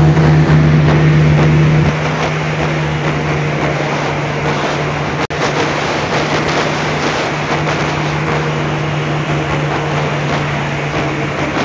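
Airboat's engine and propeller running at speed: a loud, steady drone over a rushing hiss. It is louder for the first two seconds, then eases a little, and the sound briefly cuts out about five seconds in.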